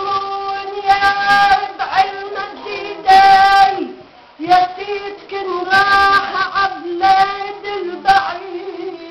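A woman singing a Lebanese folk song in the mijana and ataba style, unaccompanied: long held notes with ornamented, wavering turns, breaking off for a breath about four seconds in.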